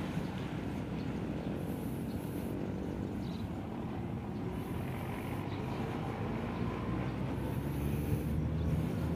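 Wind buffeting the microphone over a steady low rumble from riding along a paved road.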